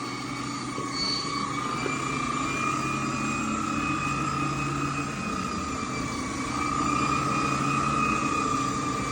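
Electrolux B2 central vacuum running with a T21 air-driven turbine power brush working: a steady high whine whose pitch wavers a little, over a lower hum.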